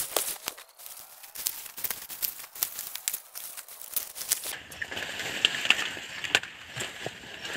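Dry corn leaves and stalks rustling and crackling as ears of corn are picked by hand, with many sharp cracks scattered throughout.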